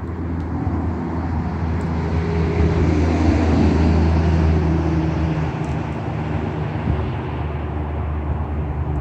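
Steady low engine-like rumble with a rushing hiss, swelling about two to three seconds in and easing off after about six seconds.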